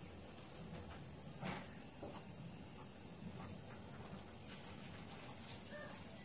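Quiet room noise: a steady faint hiss with a few soft clicks, the clearest about a second and a half in.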